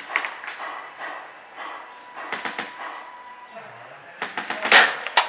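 Paintball markers firing in rapid bursts of sharp pops, with several trains of shots and the densest, loudest burst near the end.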